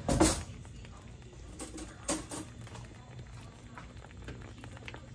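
Breaded chicken cutlets sizzling in a skillet of hot oil, with a few short louder sounds over it: the loudest right at the start, and two more about two seconds in.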